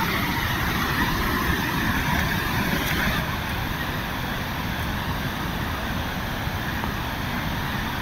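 Steady rush of falling and flowing water from a waterfall and its stream, an even roar with no pauses.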